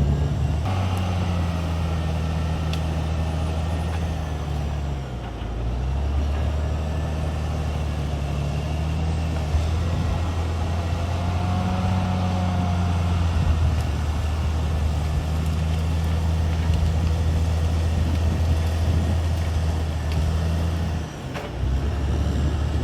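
Diesel engine of a CAT D6R XL crawler bulldozer running steadily, its note dipping and recovering twice, about five seconds in and near the end.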